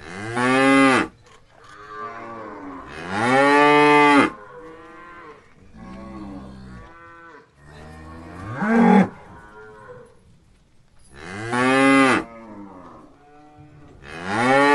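Cattle mooing repeatedly: four loud, drawn-out moos, each rising and then falling in pitch, with a fifth starting near the end and quieter moos from other animals in between.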